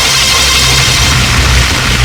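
Loud electronic soundtrack: a low bass drone that pulses rapidly, under a bright, noisy hiss.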